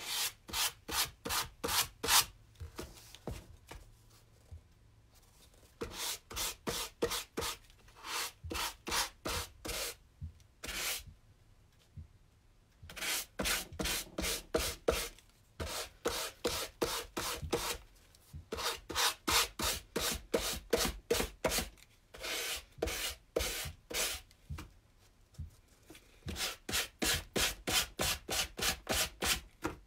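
Hand sanding with 320-grit sandpaper on a sanding block, bevelling the edge of a board: quick back-and-forth rasping strokes, about four or five a second, in runs of a few seconds broken by short pauses.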